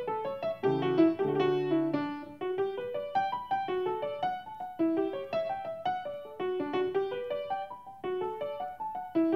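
Background piano music: a light melody of quick single notes, with a few chords about a second in.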